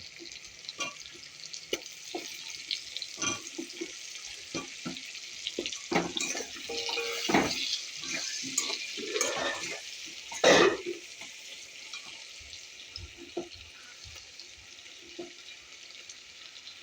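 Mutton frying in a pot with a steady sizzle, with the spoon knocking and scraping against the pot as it is stirred; a few louder clatters come about midway.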